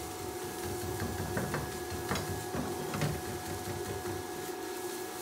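Scrambled eggs frying in oil in a nonstick wok while a plastic slotted spatula stirs them, with a few short scrapes and taps of the spatula against the pan. A steady hum runs underneath.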